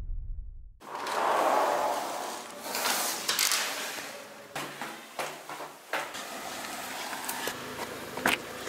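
Doors being handled: a rush of noise, then a run of latch and lock clicks and knocks as a house door is opened and shut, and a car door handle is pulled near the end.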